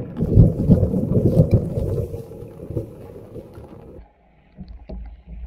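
Wind buffeting the microphone in a rainstorm: a loud low rumble for about four seconds, which then drops away to a few irregular dull thumps.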